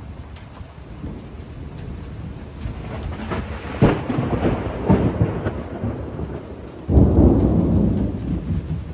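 Thunder rumbling over steady rain, with a sharp crack about four seconds in and a second, louder peal of thunder about seven seconds in.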